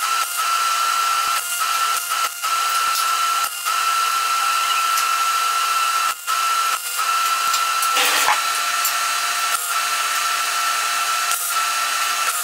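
A power tool running steadily with a constant whine and hiss, broken several times by abrupt short gaps.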